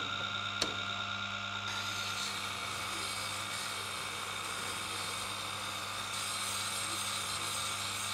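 Tormek T-7 water-cooled grinder running with a steady low motor hum while a chisel in its jig is ground on the wet stone, a steady grinding hiss from about two seconds in as the bevel is taken back to remove chips from the edge. A light click near the start.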